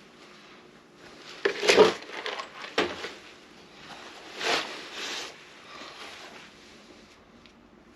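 A few irregular rustling and scraping handling sounds, the loudest about two seconds in.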